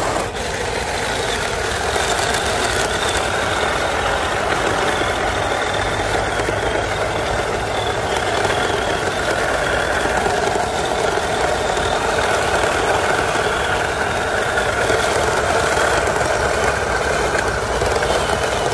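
Electric motor and gearbox of an MN128 RC crawler whining steadily under load as its tyres churn through mud and shallow water.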